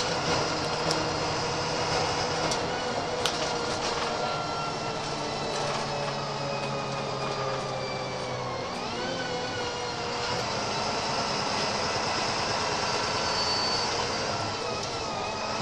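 DAF SB200 Wright Commander single-deck bus's diesel engine and drivetrain heard from on board, running with a high whine. The whining tones slowly fall, then dip and sweep back up about nine seconds in, with a few rattling clicks near the start.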